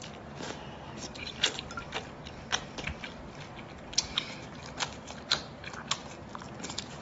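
Close-up eating sounds: a piece of shellfish being bitten and chewed, with wet smacks and irregular sharp mouth clicks, a few a second at times.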